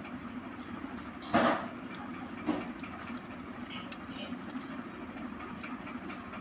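Hands scrubbing a stainless steel plate with a bar of dish soap: soft rubbing and scraping on the metal, with one sharp clank about a second and a half in and a lighter knock a second later.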